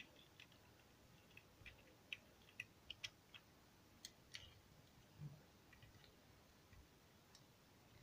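Faint, scattered small clicks and taps as a mobile phone circuit board is seated and clamped in a spring-loaded metal PCB holder, over otherwise near-silent room tone.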